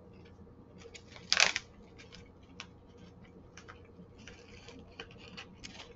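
Crinkling of a plastic snack bag as a fried peanut is picked out, then the crunching clicks of the peanut being chewed, with one sharp crackle about one and a half seconds in.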